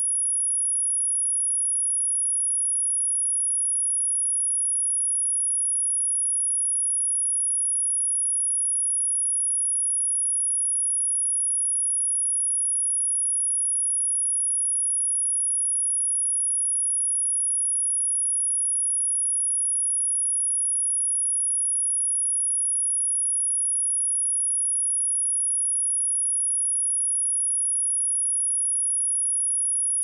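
A steady, high-pitched pure sine-wave test tone at 10336 Hz, one unbroken tone with nothing else, played to test a speaker or to shake water and dust out of it.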